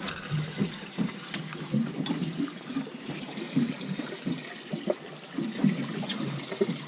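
Water sloshing and trickling around a fishing boat: an irregular splashing and gurgling with no steady rhythm.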